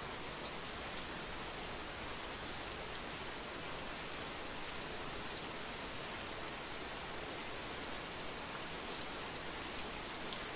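Heavy rain falling steadily: a dense, even hiss with scattered sharper drop ticks.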